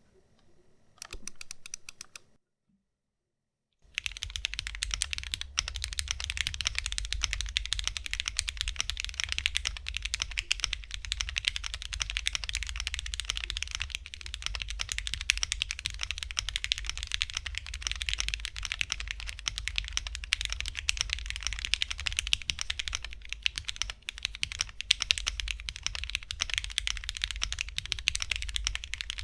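Mechanical keyboard with lubed Gateron CJ linear switches and thick PBT keycaps in an aluminium Ginkgo65 case, typed on: a short run of keystrokes, a brief dead-silent gap, then fast continuous typing from about four seconds in. The keystrokes are clean and clacky, a little thin.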